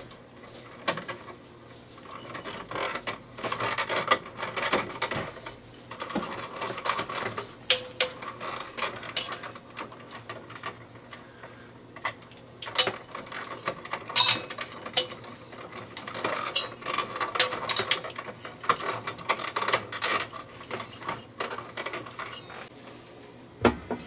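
Irregular small clicks, rustles and scrapes of electrical wires and a plastic junction box being handled as the transformer's wires are disconnected.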